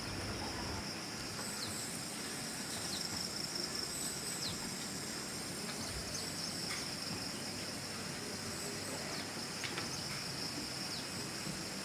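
Steady high-pitched chorus of insects, with a few short faint chirps scattered through it.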